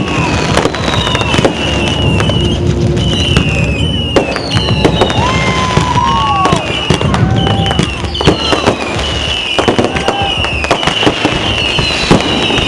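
Fireworks going off continuously: a dense run of sharp cracks and pops, mixed with shrill warbling whistles and several whistles that rise and then fall in pitch.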